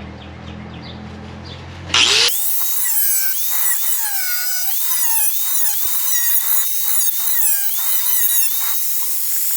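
A high-speed power grinder grinding sheet steel, starting about two seconds in: a loud high whine whose pitch dips and recovers repeatedly as the tool bites into the metal.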